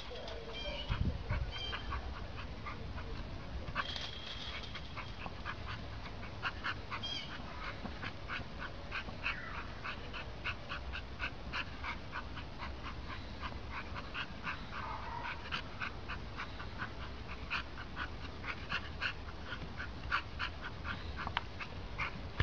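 Small canid giving rapid, short, high yips and squeaks, several a second, with a couple of brief whines about nine and fifteen seconds in, over a steady low rumble.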